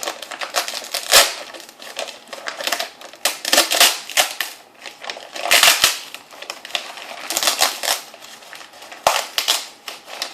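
Mailer packaging being handled and opened by hand: sharp crackling and rustling in bursts every second or two, with single louder cracks.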